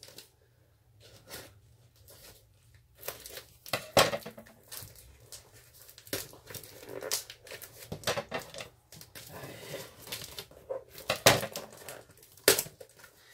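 A large mailing package being torn open by hand, its wrapping crinkling and ripping in irregular spurts, with a few sharp knocks.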